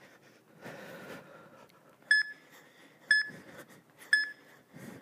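Interval-timer countdown: three short, identical electronic beeps one second apart, counting down the last seconds of the rest period before the next exercise starts.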